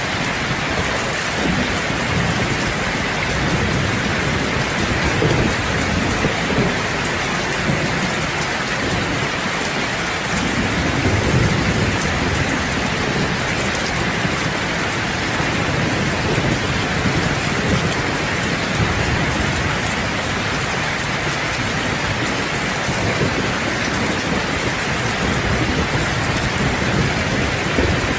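Heavy rain drumming steadily on a roof, with low rolling thunder swelling and fading a few times.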